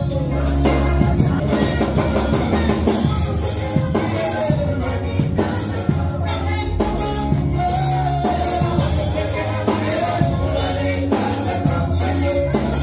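Gospel song: a man singing into a microphone over music with a drum kit and a bass line, amplified through the hall's PA.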